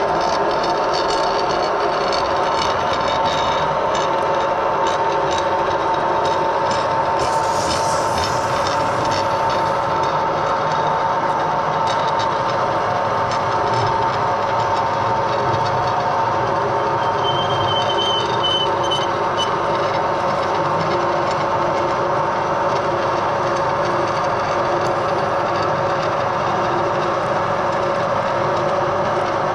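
Edgwick metal lathe running steadily through its gear train, a constant mechanical hum with two steady tones, while turning a long lead screw. A brief hiss about seven seconds in, and a short high whistle a little past halfway.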